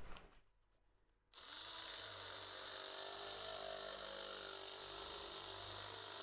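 Handheld electric sheet-metal shear running and cutting a round blank out of sheet metal: a steady high buzzing whine that starts about a second in.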